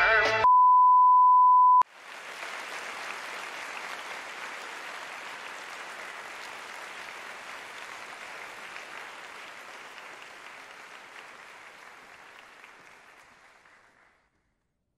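A loud, steady beep tone lasting just over a second, then a large audience applauding, the applause slowly fading away over about twelve seconds.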